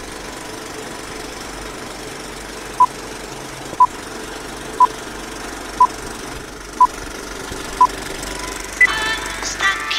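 Old-film countdown leader sound effect: a steady film-projector whir with a short beep once a second, six beeps starting about three seconds in. Music comes in just before the end.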